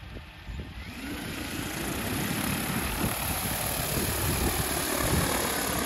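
DJI Agras T50 agricultural spray drone's rotors spinning up. A whir with a faint rising pitch starts about a second in, grows louder over the next second, then holds steady.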